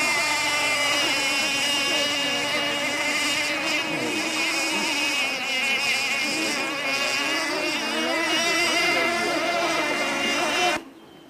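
High-pitched whine of radio-controlled model tunnel boats' small engines running flat out, the pitch wavering up and down as they race around the course. It cuts off abruptly near the end.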